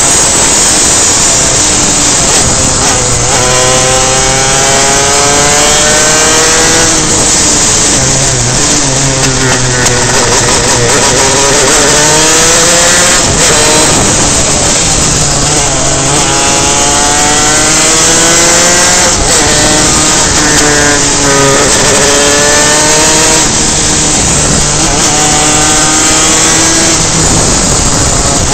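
Onboard sound of a superkart's two-stroke engine on track, its pitch climbing under throttle and dropping off again several times as it goes through the gears and corners. Heavy wind rush runs under it.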